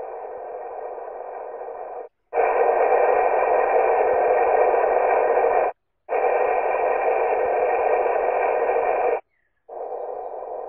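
Water-leak noise heard through a Sewerin Aquaphon A200 ground microphone: a steady rushing hiss in four stretches cut by short silent gaps, one stretch for each measuring point. The middle two are much louder than the first and last, as the noise grows at points closer to the leak.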